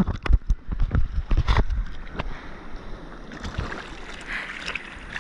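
Sea water splashing and rushing against a surfboard close to the microphone. There are sharp knocks and splashes in the first couple of seconds, then a steady wash of water.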